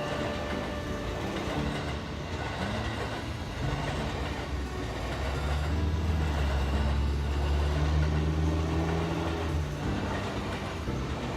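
A train running past on the line, a steady rumble that grows heavier and lower in the middle and eases off near the end.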